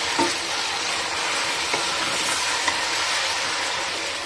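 Raw mutton pieces sizzling in hot oil over a high flame, stirred with a wooden spatula: the meat is being seared at the start of frying. A steady frying hiss with a few light spatula ticks.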